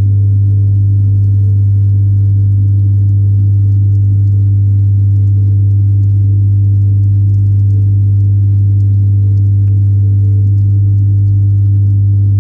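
Steady, loud, deep electrical hum with a few fainter overtones, picked up through the water of a fish tank; it comes from the tank's running pump and aeration equipment and does not change.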